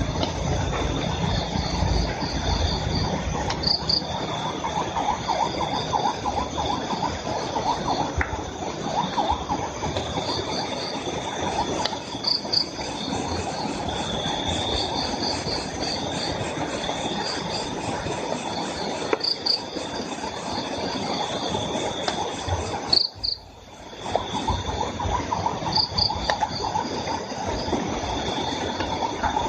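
Crickets and other insects calling together. A steady high trill runs throughout, with short runs of higher chirps every few seconds and a lower, faster pulsing beneath. The sound nearly drops out for about a second roughly three quarters of the way in.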